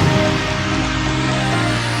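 Background music: sustained chords, changing about one and a half seconds in, with a hit right at the start.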